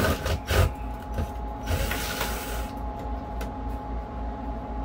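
Cordless drill backing screws out of an overhead headliner board, in short bursts with a longer run about two seconds in, over a steady hum.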